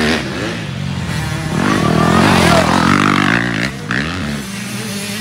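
Several motocross dirt bikes racing around a dirt track, their engines revving up and down in pitch as they shift through the gears. The loudest rev comes about two to three seconds in.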